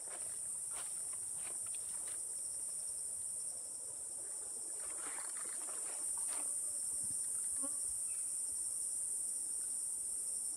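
Steady, high-pitched chorus of forest insects, with soft rustling and a few light knocks here and there.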